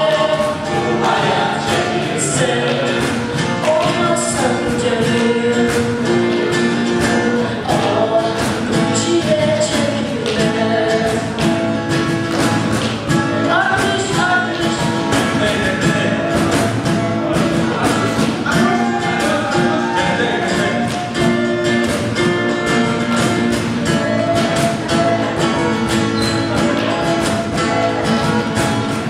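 Several voices singing a Turkish song together over music with a steady beat.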